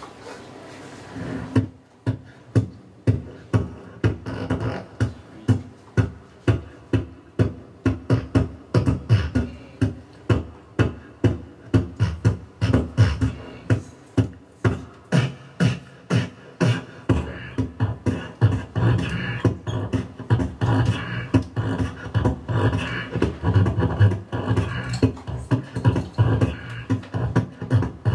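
Solo beatboxing through a handheld microphone: a steady beat of deep kick-drum-like hits with snare and hi-hat sounds between them, starting about a second and a half in. About halfway through, the pattern grows denser and more continuous under the hits.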